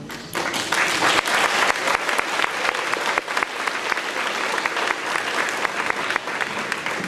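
An audience applauding, many hands clapping in a dense, steady patter that starts just after a song ends.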